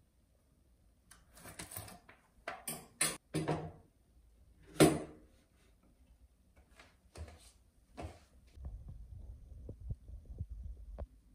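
Handling sounds: a cardboard box rustling and scraping as a small mirror is taken out, then knocks and light clicks as the mirror is set down on a glass shelf. The loudest knock comes about five seconds in.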